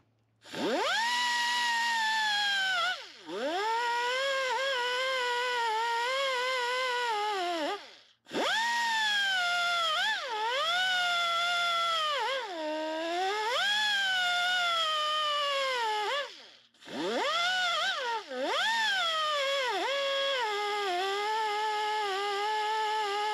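Pneumatic die grinder whining in four runs with short stops, its pitch sagging and recovering as the abrasive disc bears on and lifts off the pad of a Honda VTEC rocker arm. It is grinding down the wear that the cam lobe dug into the pad.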